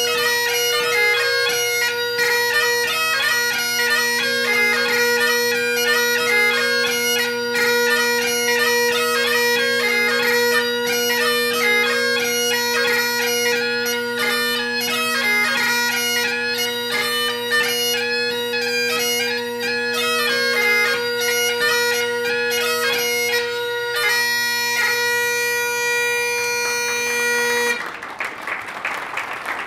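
Great Highland bagpipe playing a tune over its steady drones. The pipes cut off near the end and applause follows.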